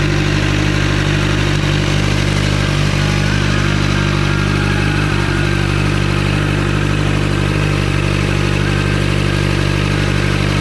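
2021 Kawasaki Z900's inline-four engine idling steadily through an Austin Racing slip-on exhaust, a loud, even exhaust note.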